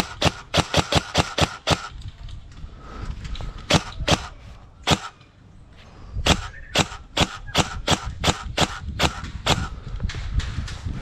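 Airsoft rifle firing repeated single shots: sharp cracks in quick strings of several a second, with short pauses about two and five seconds in.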